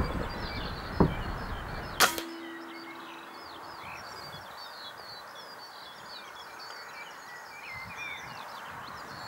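A single sharp air rifle shot about two seconds in, after two duller knocks. Small birds chirp and sing in the background.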